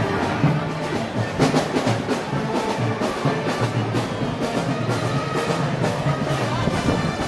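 Brass band with drums playing Moros y Cristianos festival music to a steady beat.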